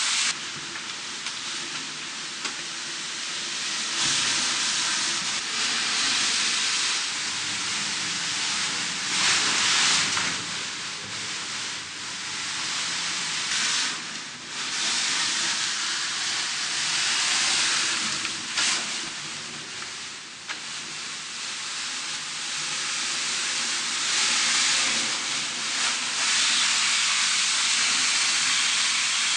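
Vacuum suction excavator's hose drawing mud and air, a steady rushing hiss that swells and eases every few seconds.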